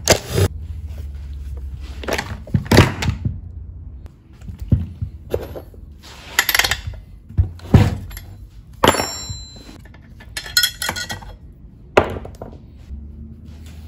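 Irregular clicks, knocks and rattles of plastic and metal as the screws are undone and the plastic top cover of a Husqvarna 455 Rancher chainsaw is lifted off, with one brief squeak partway through.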